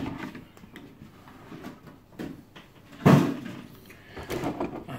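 A plastic figure box being moved on a wooden table: soft handling rustle, then one loud thump about three seconds in.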